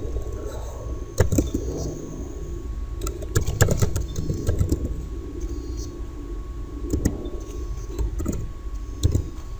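Computer keyboard being typed on: a scatter of short, irregular key clicks over a steady low hum.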